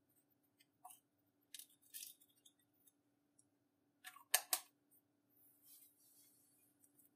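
Slime being worked by hand: scattered small clicks and crackles, with a sharp double click about four and a half seconds in, over a faint steady hum.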